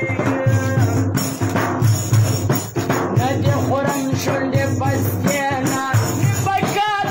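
Pashto folk music: a daira frame drum with jingles beaten by hand in a fast, driving rhythm, with a man singing over it.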